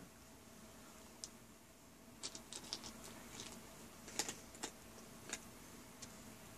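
A cat eating dry kibble from a bowl: faint, irregular crunches and clicks, a few at first, then bunched from about two seconds in and again around four to five seconds.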